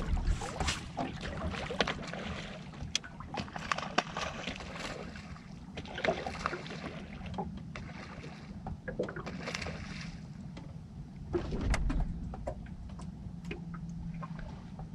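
Sound aboard a small fishing boat on open water: a low steady hum under irregular splashes, clicks and knocks, with a louder stretch about twelve seconds in.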